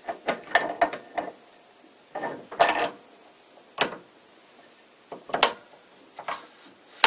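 Steel lathe spindle being pushed by hand into its tapered bronze headstock bearing, giving a string of irregular metallic clinks and knocks as metal meets metal. The knocks are separate and uneven, bunched most closely between two and three seconds in.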